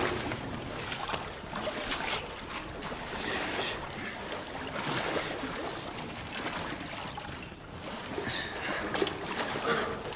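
Shallow water splashing and trickling in irregular bursts as people crawl through a wet, narrow tunnel.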